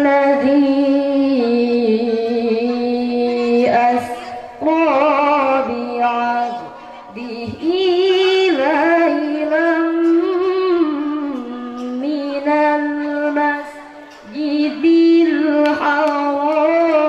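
A woman's voice reciting the Qur'an in the melodic tilawah style, amplified through a handheld microphone: long held notes with wavering ornamented runs, broken by short pauses for breath a few times.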